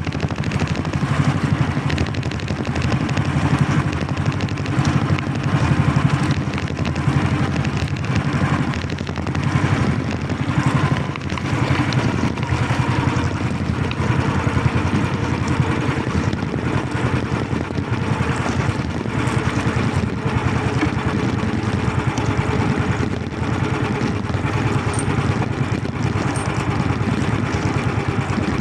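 A small engine running steadily at a constant pace.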